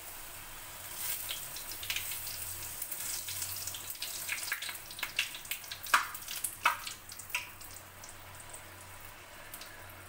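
Poori deep-frying in hot oil in a steel kadai, sizzling as it is pressed under the oil with a slotted spoon to puff it up. The sizzle grows about a second in and is full of sharp crackles, the loudest around six seconds in, then settles to a quieter hiss near the end.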